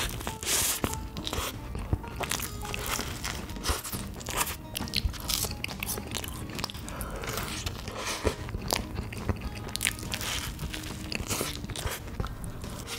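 Eating a cream puff close to the microphone: a bite into the pastry, then steady chewing with many small wet mouth clicks and crackles.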